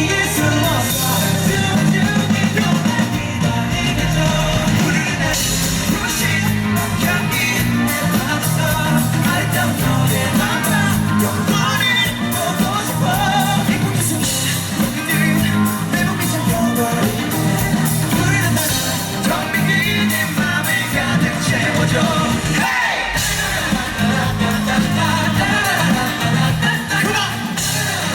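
Live rock band playing a song with singing over a steady bass and drum beat, recorded loud from the audience.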